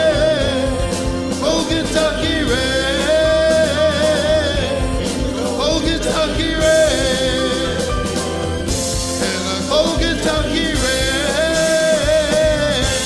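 Music: the closing bars of a slow ballad, with a man singing over the accompaniment.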